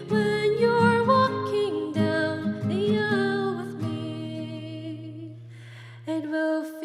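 A pop song playing: a melody that sounds like singing, over guitar and a steady bass line. The low accompaniment drops away briefly near the end, then comes back.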